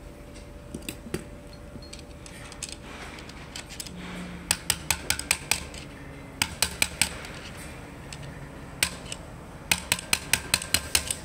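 Sharp metal-on-metal clicks in several quick runs as a long screwdriver works against the Shimano freewheel on an e-bike rear hub motor, during removal of the freewheel.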